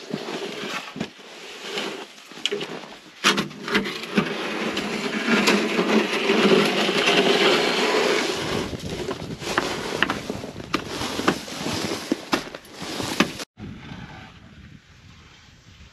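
Snow pusher shoved across packed snow: the blade scraping and sliding in long pushes, with sharp knocks in between. About 13 seconds in it cuts off suddenly to a much quieter outdoor background.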